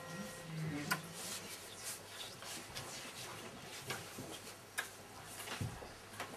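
Faint rustling of paper with scattered small clicks and taps as hands handle the pages and small objects on a desk.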